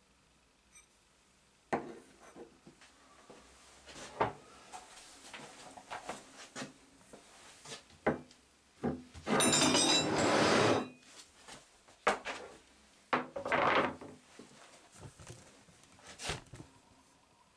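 Rusty Friedrich Dick steel files being handled and set down on a wooden workbench: a string of short knocks and clinks, with two longer rubbing noises near the middle.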